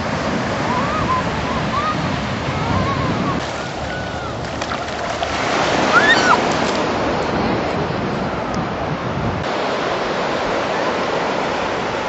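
Ocean surf washing onto a sandy beach, a steady rush of noise, with a few faint short high calls over it and a louder swell of surf about six seconds in.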